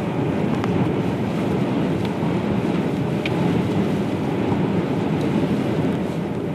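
Steady rush of car road noise and wind, heard from inside the cabin while driving through a sandstorm, with a couple of faint ticks.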